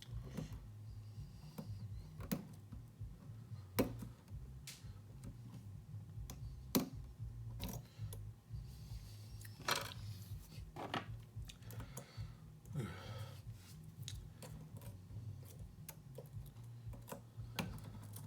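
Small irregular clicks and brief scrapes of a deep hook pick working the pins of a challenge lock under tension, while the lock sits in a deep false set. The clicks come about once a second over a low steady hum.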